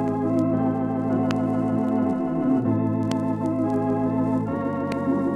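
Organ theme music playing sustained chords, the harmony changing about two seconds in and again near the end, with a few faint clicks over it.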